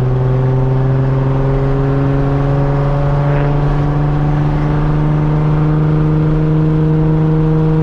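Nissan Z sports car's engine and exhaust droning steadily under way, heard from the driver's seat, the note rising slowly and evenly as the car gently gathers speed.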